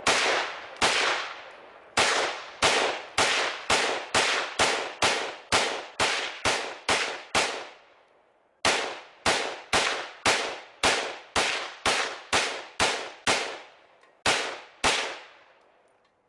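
POF piston-operated AR-15 rifle in 7.62x39 firing steel-case ammo in rapid semi-automatic shots, about thirty in all at roughly two to three a second, with a short pause near the middle. The last shot comes a little before the end. The rifle cycles without a hitch on the cheap, underpowered steel-case ammo.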